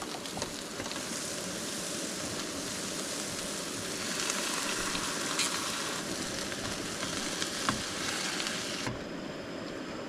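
Campfire crackling: a steady hiss broken by a few sharp pops, with the high hiss dropping away abruptly near the end.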